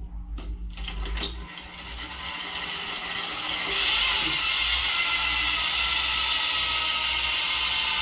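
Mongoose Bolt R29 mountain bike's rear cassette freehub ratcheting as the lifted rear wheel is spun hard. A few separate clicks come first, then the clicking runs together into a buzz that builds and holds steady and loud from about four seconds in.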